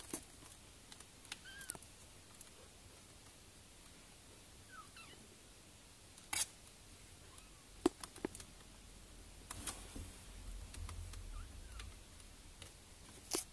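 Young kittens giving a few faint, high mews, with several sharp clicks and knocks scattered through.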